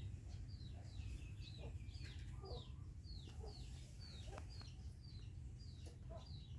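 A bird calling over and over with short, falling high-pitched chirps at about two a second, with a few lower calls mixed in, faint over a steady low rumble.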